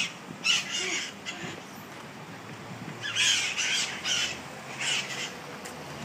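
Small green parrots perched on a storefront railing give high-pitched calls in two bunches, a short one near the start and a longer one from about three seconds in.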